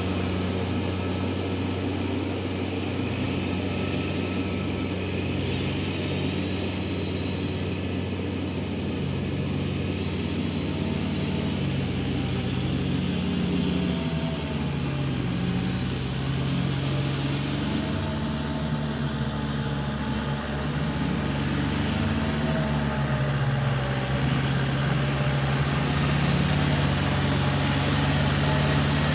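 Farm tractor's diesel engine running steadily while it tills a flooded rice paddy, growing louder near the end as the tractor draws close.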